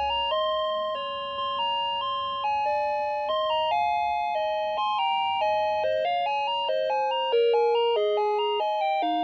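Sony ICF-A10W alarm clock's electronic alarm melody: a chiming tune of clear, bell-like notes, each one fading a little before the next.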